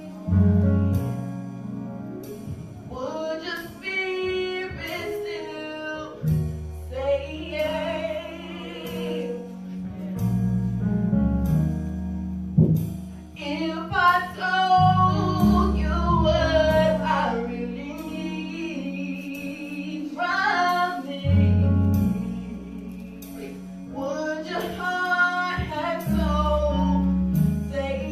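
Live gospel worship singing: a woman's voice sings long, wavering phrases into a microphone over sustained low bass chords that change every few seconds, with a light steady beat.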